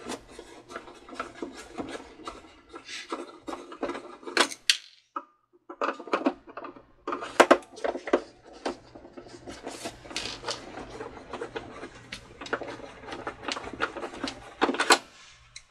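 Screwdriver turning screws out of the plastic housing of an old Cricut Expression cutting machine: many small irregular clicks and scrapes of the bit and screws, with a short pause about five seconds in.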